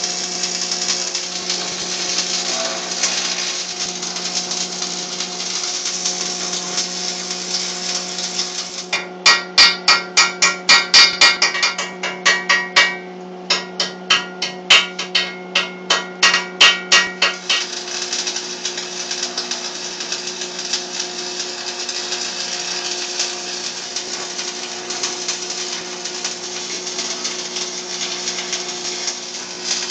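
A hammer striking metal in a quick, even run of blows, about four a second, with a brief pause midway, over a steady machine hum and hiss.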